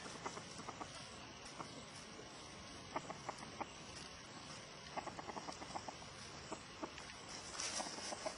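Faint outdoor ambience: scattered short chirps and clicks over a low steady hiss, with a brief breathy rush of noise near the end.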